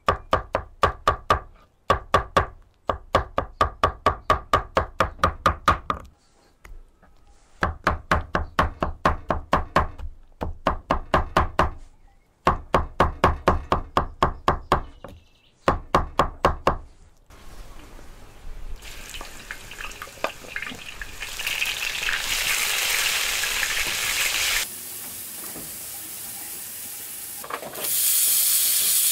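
A knife chopping soft grilled eggplant on a wooden cutting board, quick even chops at about five a second in runs of a few seconds. In the last ten seconds or so, chopped tomatoes sizzle as they fry and are stirred in a pan over a wood fire.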